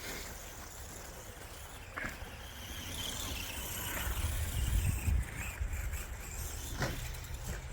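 ARRMA Granite Voltage RC monster truck running, its 20-turn 540 electric motor giving a faint high whine over tyre noise, with a low rumble swelling in the middle and two sharp knocks, about two and seven seconds in.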